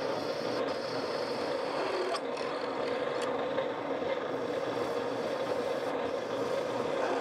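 A drilling machine runs steadily under load as its twist drill bores a hole through a steel bracket, with cutting oil on the bit.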